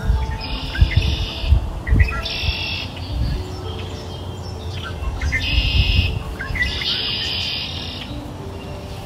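Recorded birdsong over soft background music: birds chirping in four short high bursts of about a second each, over held low tones.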